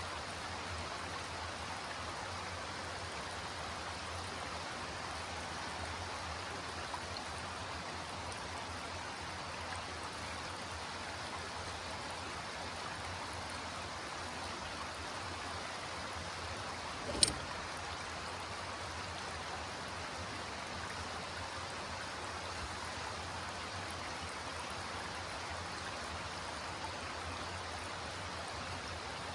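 Shallow creek running over flat layered rock ledges: a steady rush and ripple of moving water. A single sharp click a little past halfway.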